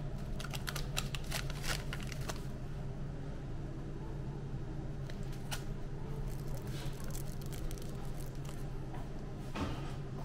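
Small foil seasoning sachets and plastic packets crinkling and rustling as they are picked up by hand, in several short bursts of crackles over a steady low hum.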